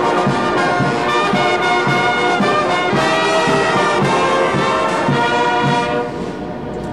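A brass band of sousaphones, trombones and trumpets playing held chords over a steady pulse in the bass, fading out near the end.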